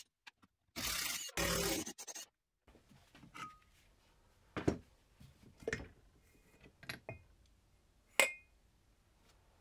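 Metal parts of a Racine railway impact wrench being taken apart by hand: a burst of scraping as the nose housing is worked loose, then several sharp metallic clinks with a short ring as the housing comes off the hammer mechanism. The loudest clink comes near the end.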